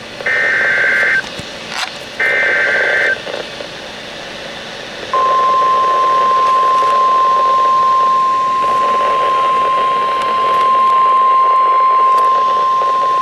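NOAA Weather Radio Emergency Alert System broadcast, heard over steady radio hiss. Two SAME digital header bursts of about a second each come first, their warbling data tones encoding the severe thunderstorm warning. About five seconds in, the steady 1050 Hz weather radio warning alert tone starts and holds, signalling the warning message to follow.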